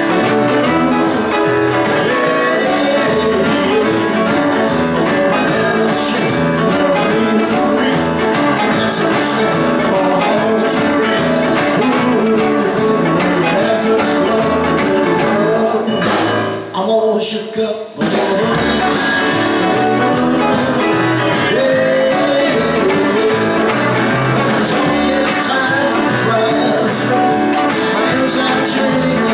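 Live band playing a rock-and-roll number with a male lead vocal, acoustic guitar, electric guitars, keyboard and drums. The sound briefly thins out and dips a little past halfway, then comes back in suddenly.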